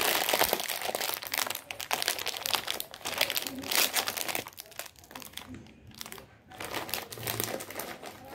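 Foil snack bag crinkling as it is handled and pulled open, in several bursts with short pauses about four and a half and six and a half seconds in.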